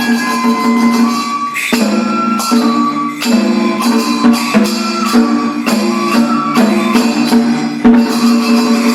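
Japanese kagura hayashi accompaniment: a held, wavering flute melody over a steady low drone, with drum strikes and jingling bells at irregular intervals.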